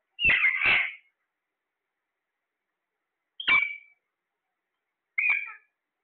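Caged Alexandrine parakeets calling: two loud squawks in quick succession at the start, then single squawks about three and a half and five seconds in.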